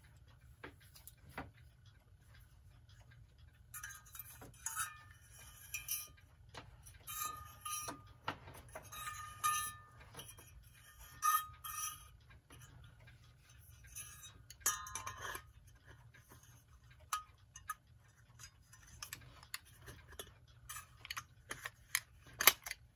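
Hammond Bichronous clock mechanism being handled and slipped back into its housing: scattered irregular clicks and short bursts of scraping and rattling, with a faint steady low hum underneath.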